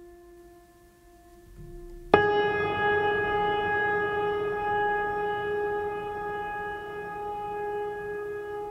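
Background ambient music. A faint held tone plays, then about two seconds in a struck, bell-like tone sounds and rings on, slowly fading.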